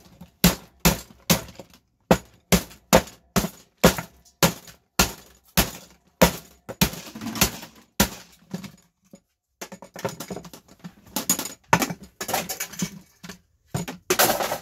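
A hammer striking the plastic housing and metal parts of a pod coffee maker, about two to three blows a second. There is a stretch of denser rattling in the middle and a short pause, then more blows, the loudest near the end.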